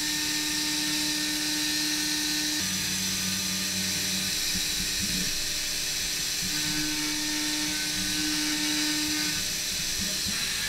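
CNC mill (DMG Mori DMU50) with its spindle running while a small end mill cuts along the edge of a 6061 aluminium part. It makes a steady high hiss over a low machine hum that shifts pitch a few times as the tool moves along the contour.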